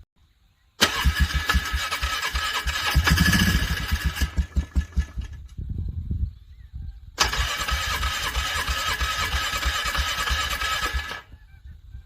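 A vehicle's starter cranking the engine over in two long attempts, a high starter whine over quick low pulses, without the engine catching. Low pulses go on briefly after the first attempt stops. It is struggling to crank over in frigid cold.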